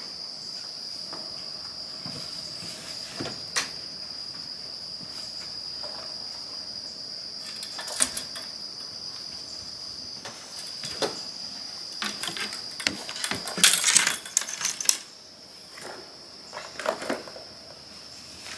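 A steady high insect trill behind scattered knocks, footsteps and clatter on a wooden porch as a fishing rod and backpack are carried out and set down. The handling noise is busiest from about twelve to fifteen seconds in.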